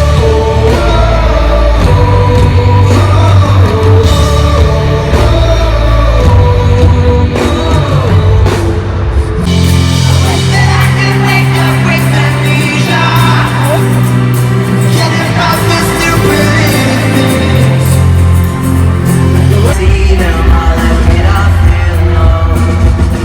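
A rock band playing loud with a singer's voice and some yells over the top, sounding like a live set in a large hall.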